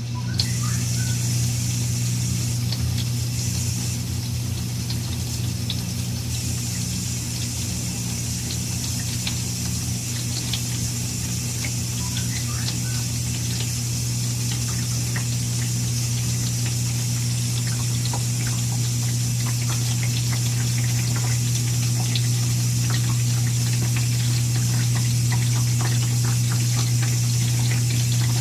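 Moffat dishwasher running with a loud, steady low buzz under the hiss of water spraying inside the tub. The buzz is the fault the owner is asking about.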